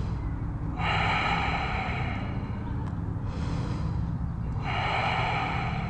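A person breathing deeply and audibly while holding a yoga stretch: two long, loud breaths, one about a second in and one near the end, with fainter breaths between them. A steady low hum runs underneath.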